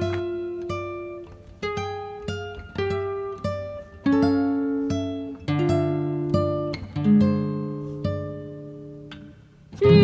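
Background music: an acoustic guitar plucking single notes and chords, each ringing and fading before the next.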